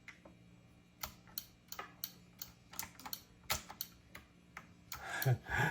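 Typewriter-style keyboard with round keycaps being pressed key by key: irregular sharp clacks, a few a second, starting about a second in.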